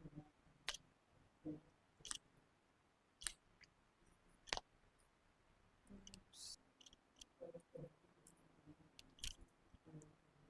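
Quiet room with faint, scattered sharp clicks, about five spread over the stretch, and a few soft, muffled rustles and thuds in between.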